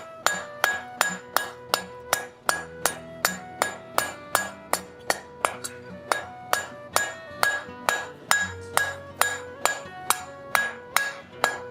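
Blacksmith's hammer striking hot steel bar stock held against the edge of the anvil, about two to three blows a second in a steady rhythm, each blow ringing. These are glancing sideways blows that push the upset end toward a centre point, shaping a conical mushroom head.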